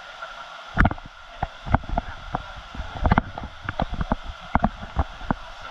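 Steady rush of a waterfall, with a run of irregular close knocks and splashes starting about a second in, louder than the falling water.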